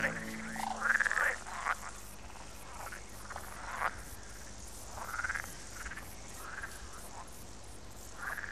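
Waterfowl calling: about a dozen short, sweeping calls at uneven intervals, loudest around a second in.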